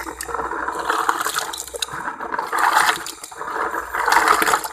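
Water sloshing and splashing as a batch of land snails is washed by hand in a container of water, rising in a couple of louder swells.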